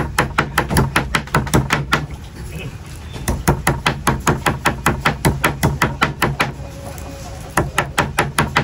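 Fast, even chopping on a cutting board, about six strokes a second, in three runs with short pauses between.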